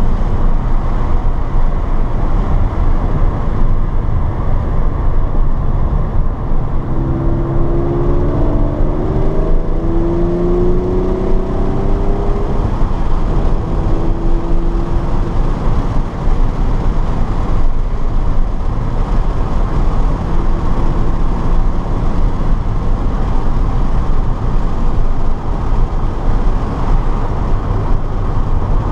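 Car driven hard on a race track, heard from onboard: constant loud wind and road rumble, with the engine note climbing under acceleration several times from about seven seconds in.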